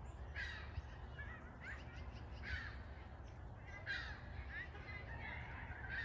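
Ring-billed gulls calling, several short calls a second or so apart.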